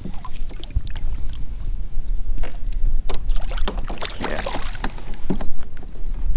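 Redfish splashing and thrashing at the surface beside a kayak as it is released on a lanyard. The loudest splashing comes about four seconds in, among scattered clicks and knocks of handling gear against the hull, over a low wind rumble.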